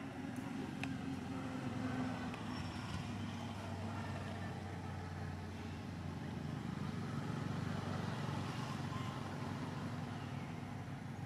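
Low, steady hum of a running engine, with several steady tones underneath.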